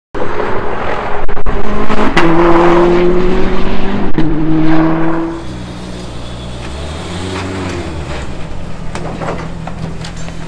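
Subaru STI race car's turbocharged FA24 boxer engine running loud at a steady, held pitch, then dropping to a lower, quieter note about five seconds in as the car pulls up. It runs on at that low note, with a few sharp clicks near the end.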